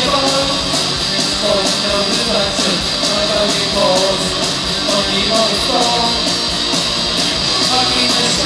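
Live post-punk rock band playing: electric guitar and bass guitar over drums, with a steady cymbal beat, loud and full.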